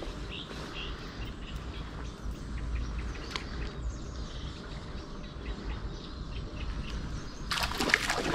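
Small birds chirping repeatedly over a steady background rush of river water. Near the end a sudden loud burst of splashing breaks in as a trout takes the lure and is hooked.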